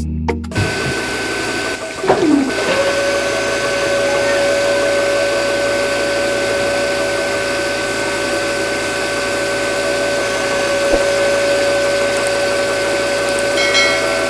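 Small DC-motor mini water pump starting up about two seconds in, then running with a steady whine as it draws muddy water from the borehole through its tube.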